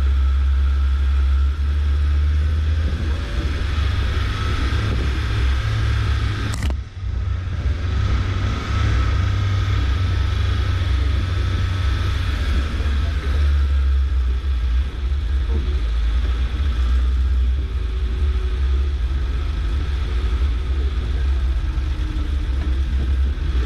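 Suzuki SJ413's 1.3-litre four-cylinder engine and drivetrain running steadily under way, a deep continuous rumble. A single short sharp click about six and a half seconds in.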